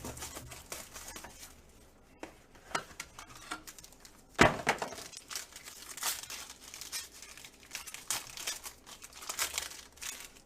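Plastic trading-card packaging crinkling and tearing as a box of cards is unwrapped by hand, in irregular rustles, with one sharp loud snap about four and a half seconds in.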